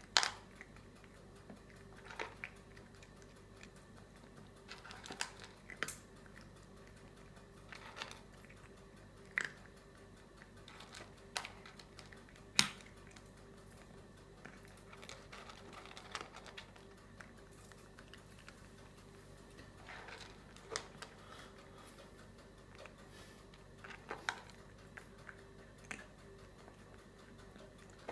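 A cat eating from a plastic bowl: sparse, irregular clicks of chewing and mouth against the bowl, one every second or two, the loudest about twelve seconds in, over a faint steady hum.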